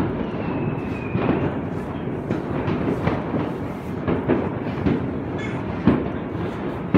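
New Year's Eve fireworks heard from inside a church bell tower: a dense, continuous crackle of pops and bangs at irregular spacing. A short whistling rocket glides in pitch about a second in.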